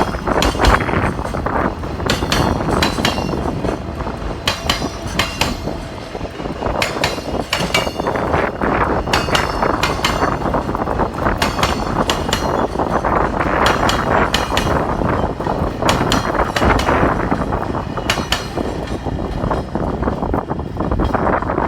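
Freight train wagons rolling past, their wheels knocking sharply and unevenly over rail joints above a steady rumble of running noise.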